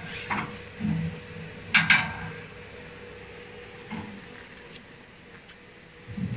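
Sharp clicks and knocks: a light one about half a second in, two sharp ones close together near two seconds, and softer ones later. Under them runs a faint steady hum.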